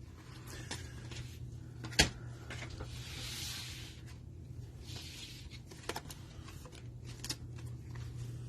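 Trading cards and their packaging being handled on a table: a sharp click about two seconds in, then soft rustling and a few light clicks, over a low steady hum.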